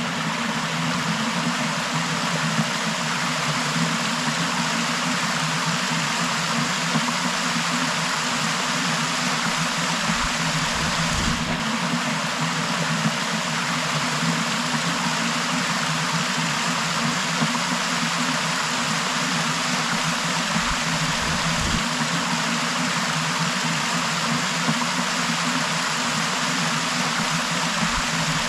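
Waterfall pouring, a steady loud rush of falling water, with a few brief low bumps now and then.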